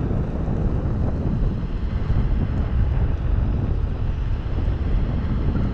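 Wind rumbling steadily over an action camera's microphone while riding an electric unicycle along a road.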